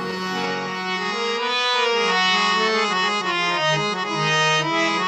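Harmonium playing a slow melody in held notes over a steady low drone: the instrumental lead-in to a Bundeli badhai folk song.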